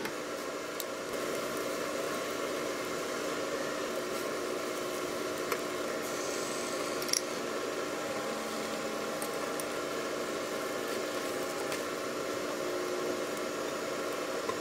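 Beaten egg cooking in a nonstick frying pan for a rolled omelette: a steady hiss over a low hum, with a few light clicks of chopsticks and spatula against the pan.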